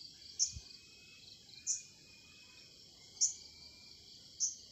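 Steady high buzzing of insects, with a short high chirp repeating four times, about every second and a half.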